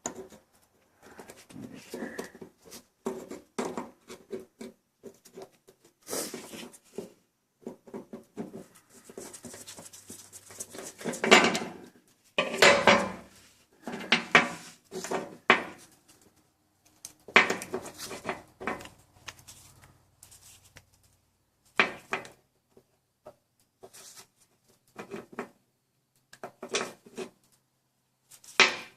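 Small metal parts and hand tools clicking, tapping and rattling in irregular knocks as the reverse-light micro switch is refitted by hand. A few louder knocks come near the middle.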